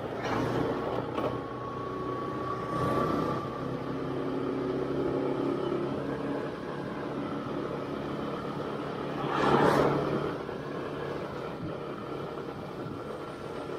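Motorcycle engine running steadily while riding through town traffic, with road noise. A louder rush of noise swells and fades about ten seconds in.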